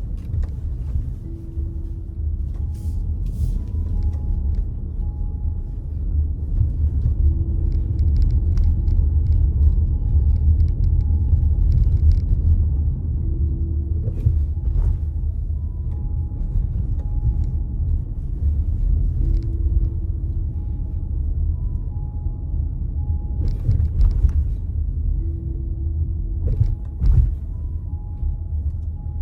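Car being driven: a steady low rumble of road and engine noise heard from inside the cabin, with a few brief knocks around 15, 24 and 27 seconds in. Faint soft music repeats a short phrase about every six seconds over it.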